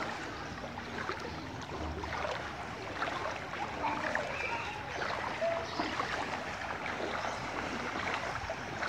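Sloshing and splashing of people wading through knee-deep floodwater, an irregular watery churn with small splashes throughout.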